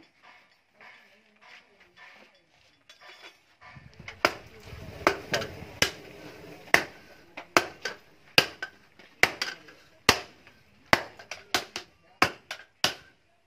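Sledgehammers striking a red-hot steel blade on an anvil: sharp metallic blows starting about four seconds in, coming faster toward the end as two strikers take turns.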